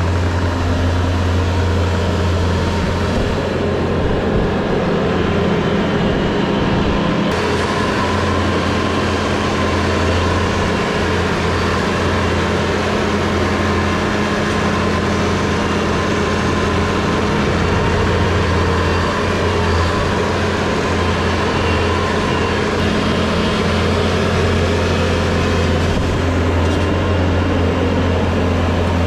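A vehicle engine running steadily at an even speed, a constant low hum with no revving.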